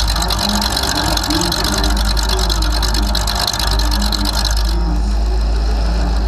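Demolition derby car's engine idling through open upright hood stacks, heard close up as a loud, steady low rumble. A hissy upper layer drops away about five seconds in.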